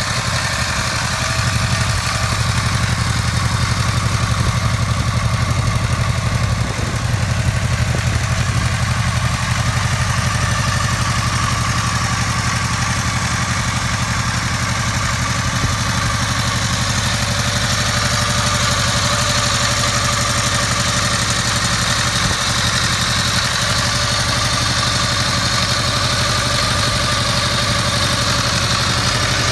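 Matchless Silver Hawk narrow-angle V4 motorcycle engine idling steadily.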